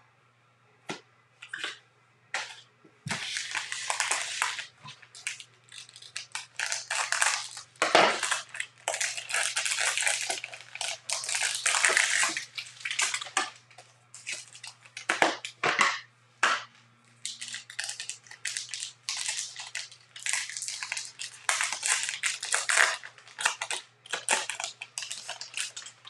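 Plastic-foil trading card pack wrappers crinkling and tearing as baseball card packs are opened, in irregular crackly bursts with short pauses.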